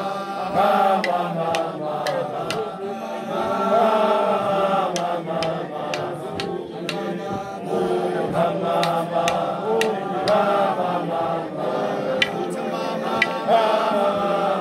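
A group of voices singing a chant-like song together, with sharp percussive hits scattered through it.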